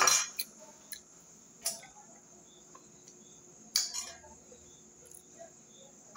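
A few short clinks and knocks of a spoon and glass plate on a table, spaced a second or two apart, the loudest about four seconds in.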